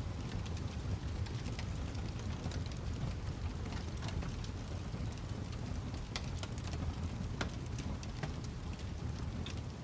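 Wood fire crackling: a steady low rumble of flames with scattered sharp pops and snaps at irregular moments.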